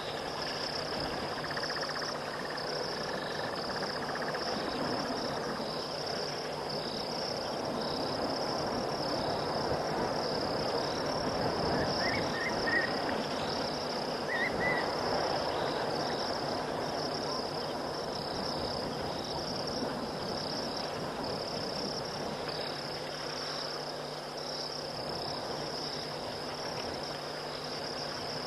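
Night insect chorus: crickets trilling steadily at a high pitch over a constant low hiss, with a few short chirps about twelve and fourteen seconds in.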